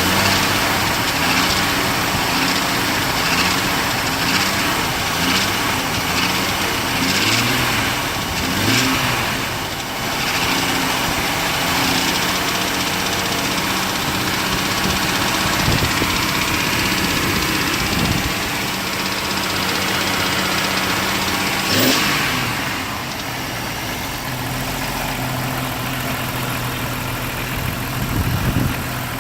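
Jeep Wrangler's 4.7L stroker inline-six running with a rattle that the owner suspects is a bad wrist pin or piston slap. It is blipped up and down several times over the first ten seconds, then holds a raised speed, and drops back to idle a little past two-thirds of the way through.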